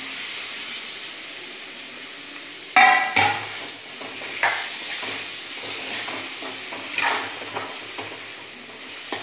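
Chopped tomatoes sizzling in hot masala in a steel kadai while a steel spoon stirs and scrapes against the pan, with a loud metal clank about three seconds in.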